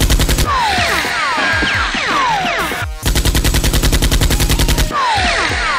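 Automatic gunfire sound effect: two rapid bursts of machine-gun fire, one ending about half a second in and another from about three to five seconds in, with falling whistling whines between the bursts.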